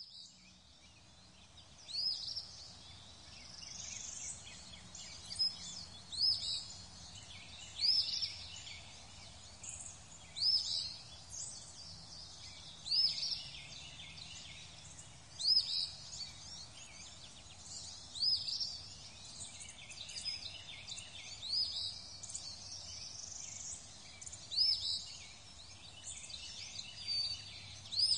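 Birds calling: short, high chirps repeat every two to three seconds over a steady background hiss.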